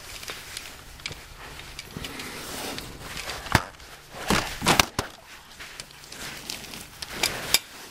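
Scattered light knocks, clicks and rustles of someone moving about and handling metal tools, with a few sharper knocks around the middle and near the end.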